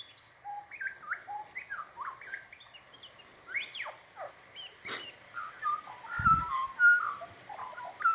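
Australian magpie singing: a run of short whistled notes and quick falling glides, turning to a warbling phrase near the end. A sharp click about five seconds in and a brief low thump soon after.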